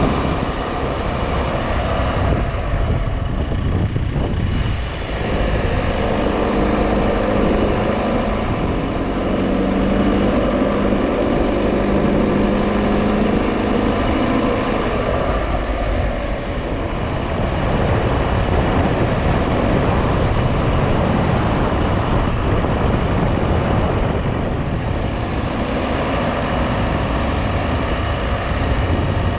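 Car driving on wet asphalt: steady engine hum with tyre and road noise, the engine note most distinct through the middle stretch.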